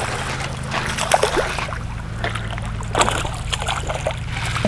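Hooked black bass thrashing and splashing in shallow water at the surface, with sharper splashes about a second in and again about three seconds in, over a steady low hum.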